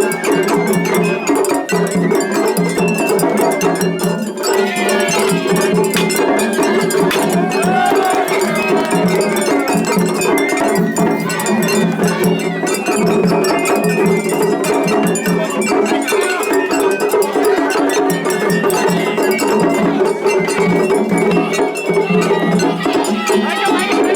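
Japanese festival hayashi from rival float bands playing over one another in a seriai (競り合い) face-off. Small hand gongs (atarigane) clang without pause over the rest of the ensemble, and the whole runs dense and unbroken.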